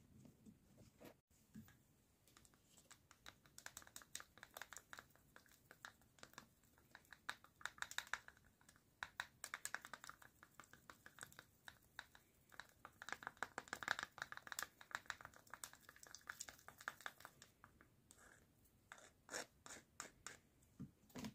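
Close-up hand work on model scenery: quick, irregular scratching and scraping made of many small clicks, coming in busy clusters with a short lull near the end.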